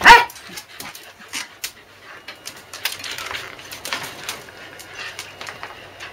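Excited corgis in a pen: one sharp yip right at the start, then soft whimpering with scattered light clicks.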